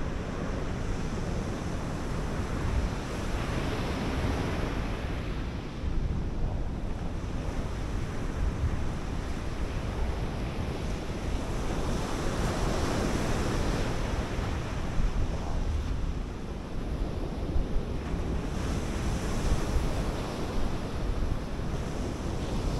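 Sea surf breaking and washing up a sandy beach, with swells about 4 and 13 seconds in. Wind buffets the microphone throughout.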